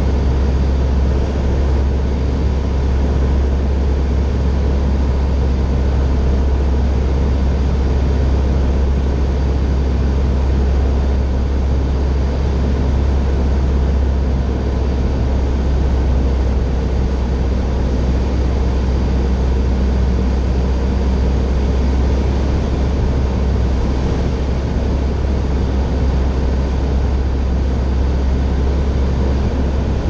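Steady drone of a Grumman Tiger's 180 hp four-cylinder Lycoming engine and propeller, heard inside the cabin along with airflow noise, running evenly without change.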